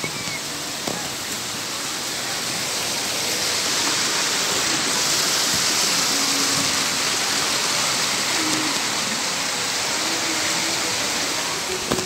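Fast-flowing stream water rushing over rocks: a steady hiss that grows louder about four seconds in.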